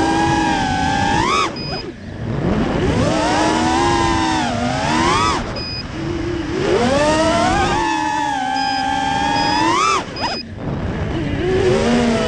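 Brushless motors and propellers of an FPV quadcopter heard from its onboard camera: a high whine with many overtones that rises and falls with the throttle. It climbs steeply and then drops away suddenly three times, about a second and a half in, at about five and a half seconds and at about ten seconds, before spooling back up.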